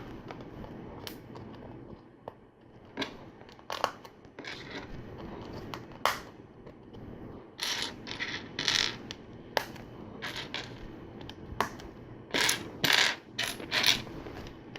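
Small plastic LEGO plates and tiles clicking and clattering as they are handled and pressed onto a build: a run of irregular sharp clicks, busier near the end.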